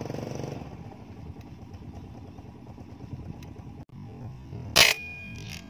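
Motorcycle engine running steadily, louder at first, with a single loud sharp crack near the end.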